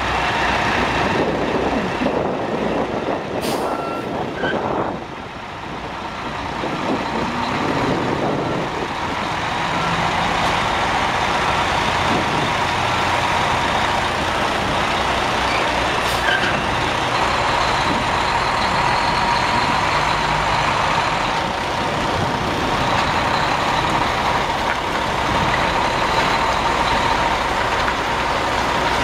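Cummins ISM 10.8-litre inline-six diesel of a Freightliner FLD120 dump truck running as the truck moves off. There are two short sharp air hisses, about three and a half and about sixteen seconds in, and a run of beeps for a few seconds about four seconds in.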